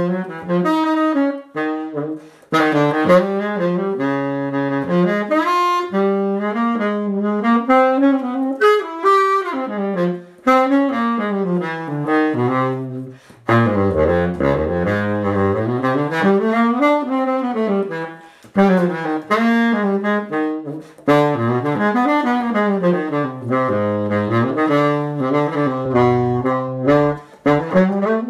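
Conn 12M baritone saxophone played unaccompanied: a fast jazz line running up and down the horn's range, down into its low register about halfway through, with a few short breaks for breath.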